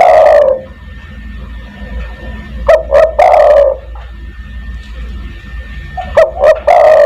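Spotted dove (tekukur) cooing: a repeated phrase of two short notes followed by a longer falling coo, heard about every three seconds.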